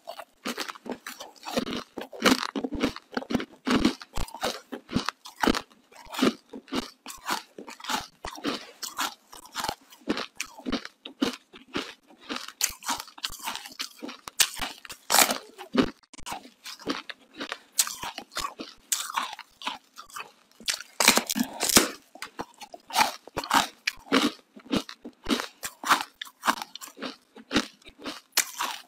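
Close-miked biting and chewing of a hard piece of coloured ice: sharp, cracking crunches in quick clusters, with brief pauses between bites. The loudest crunches come around the middle and about two-thirds of the way in.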